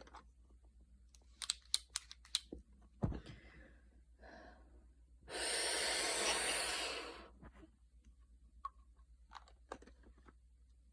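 A woman's long, breathy exhale of about two seconds in the middle, with a few small clicks and a soft thump before it.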